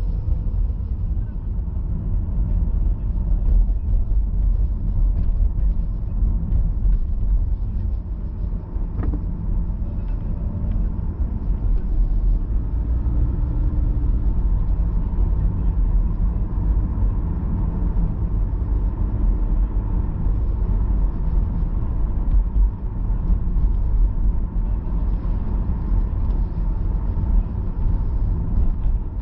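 Steady low rumble of a car driving through city streets, engine and tyre noise heard from inside the cabin.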